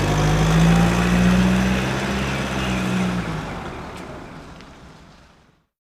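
Engine-like rumble with a steady low hum, loud at first, then dying away over the last two seconds and cutting to silence just before the end.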